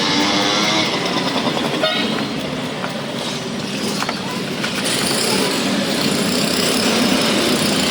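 Pressure washer running: the pump motor hums steadily under the hiss of the water jet.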